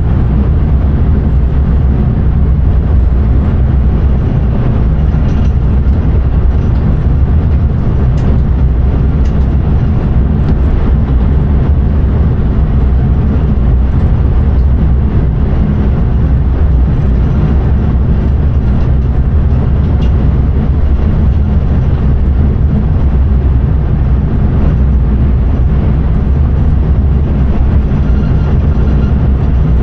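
Intercity train running along the line, heard from the driver's cab: a steady low rumble of wheels on rail and running gear.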